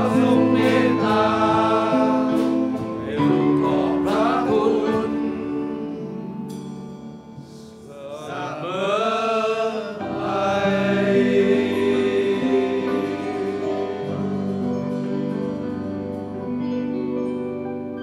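Men's choir singing a hymn with instrumental accompaniment. The voices dip about seven seconds in, swell again, then settle on long held notes that fade.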